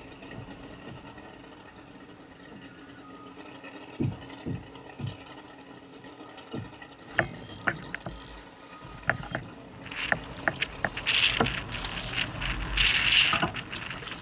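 A spinning reel being cranked while a hooked fish is fought from a kayak, with clicks and knocks from the reel and the kayak. Near the end comes a denser stretch of water splashing as the fish thrashes at the surface beside the kayak.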